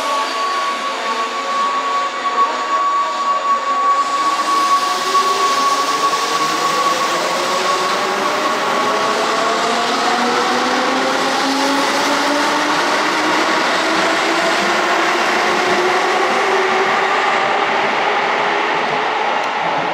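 Pre-VVVF Keihan electric train pulling away, its traction motor and gear whine rising slowly and steadily in pitch as it picks up speed. A steady high tone is heard early on and fades out.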